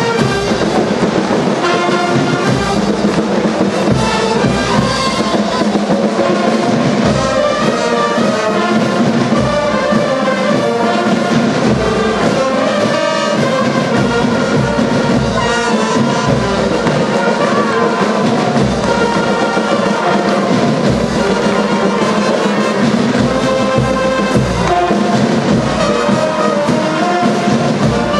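Brass marching band playing a tune with drums, trumpets and trombones over a steady drumbeat.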